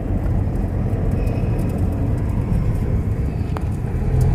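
Steady low rumble of engine and tyre noise inside a moving car's cabin while driving on a paved road.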